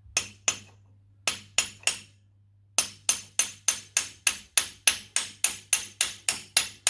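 Hammer driving a steel punch against the drawbar mounting pin of a Fordson Major tractor to tap it out: sharp, ringing metal-on-metal blows, first two, then three, then a steady run of about three a second.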